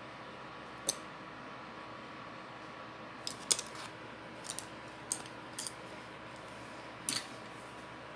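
Scattered light clicks and taps of small hard objects, such as painting tools being handled and put down, about eight in all with the sharpest about three and a half seconds in, over a steady background hiss with a faint hum.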